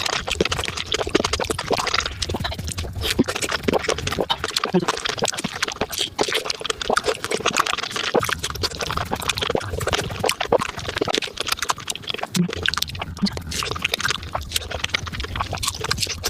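Close-miked fruit-eating sounds played at five times normal speed: biting, crunching and chewing merge into a dense, unbroken stream of rapid clicks.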